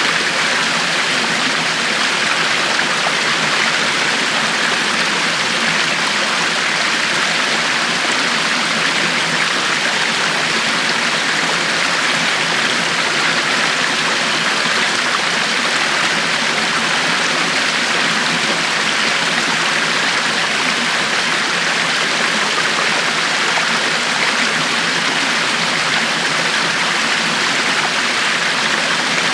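River water flowing steadily, a constant rushing with no change or break.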